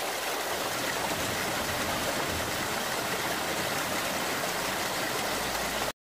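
Mountain valley stream rushing steadily, an even wash of water noise that cuts off suddenly near the end.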